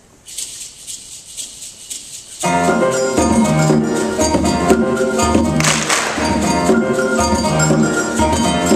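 Instrumental intro of a Latin-percussion choral piece: a shaker rattles alone at first, then about two and a half seconds in the double bass, piano and conga come in together on a steady pulsing beat, with a percussion crash about six seconds in.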